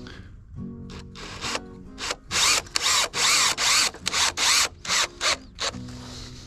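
Power drill run in about a dozen short trigger bursts in quick succession, starting about two seconds in and stopping about five and a half seconds in. Background music plays throughout.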